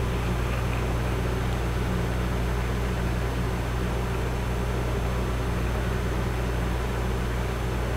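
Steady low electrical hum with an even fan-like hiss, from the portable electric burner running under the pan.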